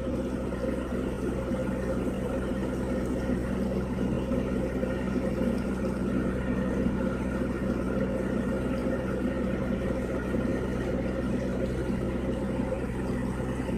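Steady drone of a squid-fishing vessel's machinery running: an even, low hum made of several steady tones.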